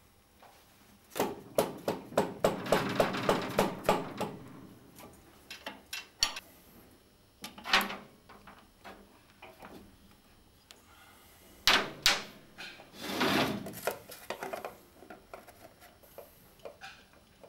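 Hand tools working the filler and drain plugs on a Moto Guzzi Centauro's bevel drive (rear final drive housing): a run of rapid clicks for a few seconds, then scattered metal clinks and a sharp knock near the middle.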